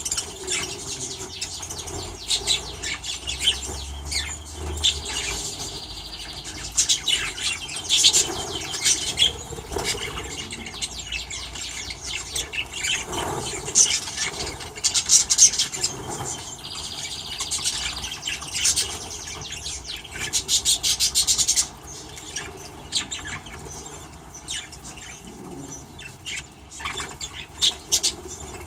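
Mixed flock of small aviary birds (budgies, canaries and finches) chirping and calling constantly, with wings flapping among the calls.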